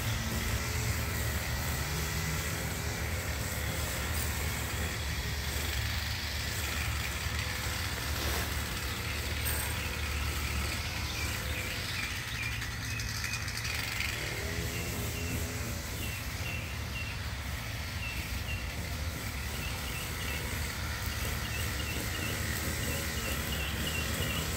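Echo SRM230 two-stroke string trimmer running steadily, trimming grass.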